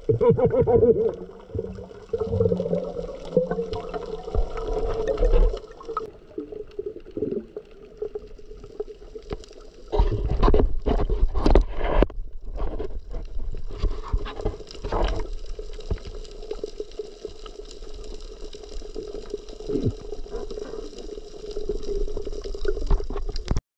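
Water gurgling and sloshing, with louder irregular splashy bursts about ten to fifteen seconds in, over a steady hum.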